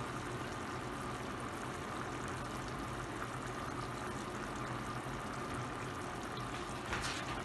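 A pot of chicken stew simmering on a gas stove, a steady bubbling hiss.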